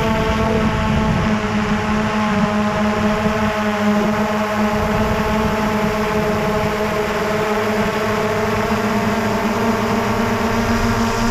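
Small quadcopter drone's motors and propellers whirring steadily at a constant pitch, over a rough low rumble.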